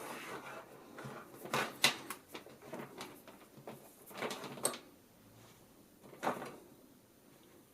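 A few scattered soft knocks and rustles, like small objects being handled, the sharpest click about two seconds in.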